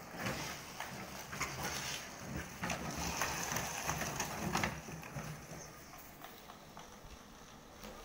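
Four-wheeled mobility scooter with plastic bottles strapped around it, rattling and clattering as it drives across rough concrete. The sound is loudest as it passes close, about four seconds in, then fades as it moves away.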